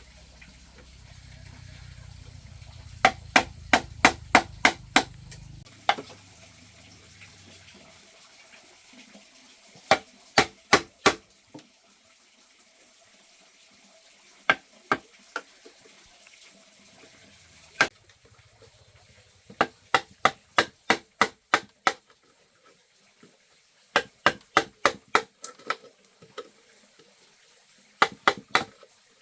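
Repeated sharp knocks in quick bursts of four to seven strikes, about four a second, with pauses of a few seconds between bursts.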